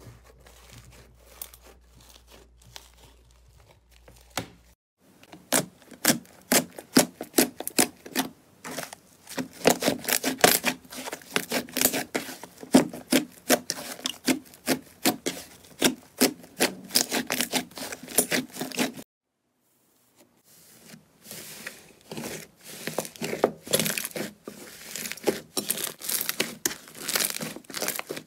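Slime kneaded, squeezed and stretched by hand, giving dense crackling clicks and pops as trapped air pockets burst. It is faint for the first few seconds, then louder, with a short silent break about two-thirds of the way through.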